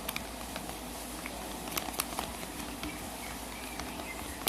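A spoon stirring a mix of glue, water and hand lotion in a bowl, making irregular light clicks and taps.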